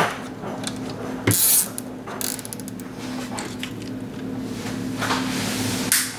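Nylon zip tie being pulled tight around a wire bundle, its teeth ratcheting through the head in short clicking rasps. Near the end a sharp click as side cutters snip off the tail.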